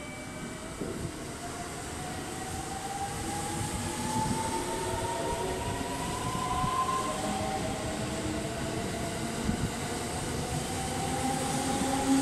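JR 681 series electric train accelerating away: the traction motors give a steady whine that rises in pitch, over the rumble of its wheels and a few short clacks, and the sound grows slowly louder.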